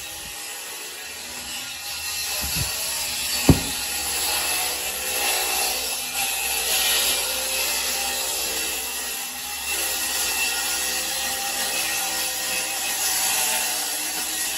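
Cordless circular saw running steadily under load as it cuts through a water-damaged particle-board subfloor, with a sharp knock about three and a half seconds in.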